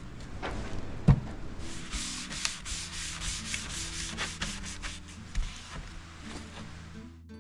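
Quick, repeated rubbing strokes of hand sanding on wood. A single knock comes about a second in, and the rubbing stops abruptly just before the end.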